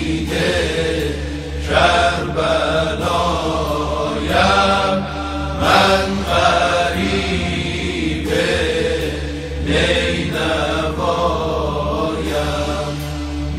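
A tawashih vocal ensemble chanting a slow lament melody in long drawn-out phrases over a steady low hummed drone.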